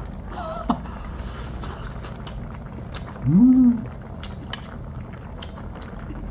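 A man eating hot sujebi with metal chopsticks: chopsticks clicking against the bowl and his mouth, blowing on and chewing the steaming dough, with one short rising hum of relish a little over three seconds in.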